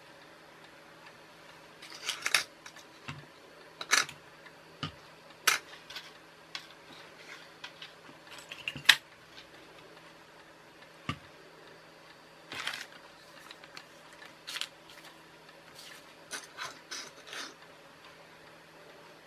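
Scattered light clicks, taps and short rustles of hands handling a small electronic-kit circuit board and loose components on a cutting mat, over a faint steady hum.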